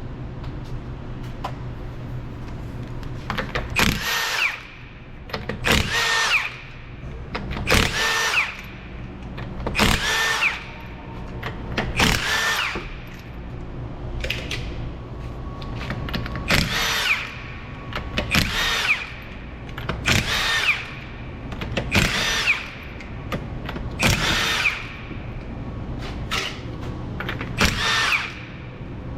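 Handheld power tool run in about a dozen short bursts, roughly two seconds apart.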